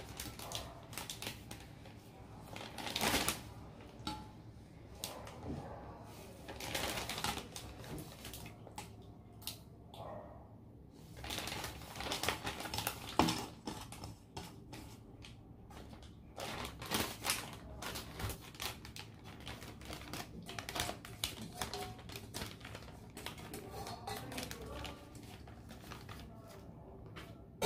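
Plastic zip-top bag rustling and crinkling as it is handled and filled with pieces of marinated raw pork, with scattered small clicks and a few sharper knocks.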